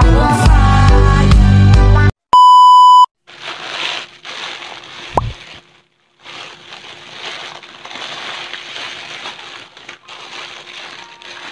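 Background music stops about two seconds in, followed by a loud, steady beep lasting under a second. The rest is the crinkling and rustling of a plastic courier mailer being handled, with short pauses.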